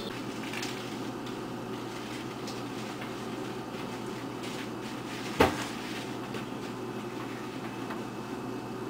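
Steady background hum and hiss, with one sharp knock about five and a half seconds in.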